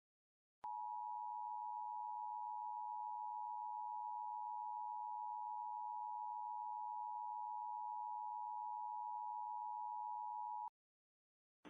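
Emergency Alert System attention signal: a steady two-tone chord held for about ten seconds, starting just under a second in and cutting off suddenly.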